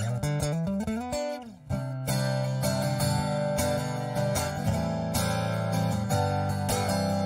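Cole Clark True Hybrid hollow-body guitar heard through its Cole Clark acoustic pickup alone, with no room microphone. Picked notes give way, after a brief pause about a second and a half in, to steady strummed chords.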